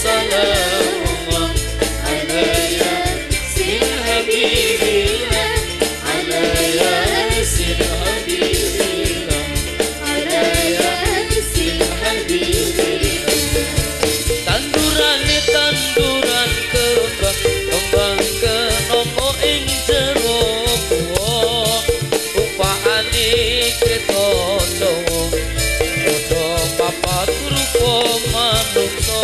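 Live qasidah-style band music: a man and women singing over frame drums, a keyboard and a drum kit, with a steady percussive beat.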